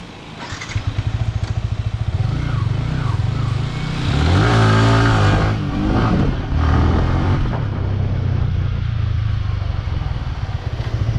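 Yamaha R15 V3 motorcycle's single-cylinder engine starting up about a second in and settling to a rapid, even beat, then revved once around four seconds in, its pitch rising and falling back, before idling again.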